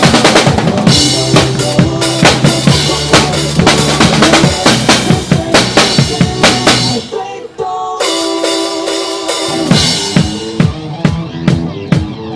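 Acoustic drum kit played live over a backing track: a driving kick-and-snare beat with cymbals. About seven seconds in, the drums and bass drop out, leaving sustained chords from the backing track for a couple of seconds, before the drums come back in.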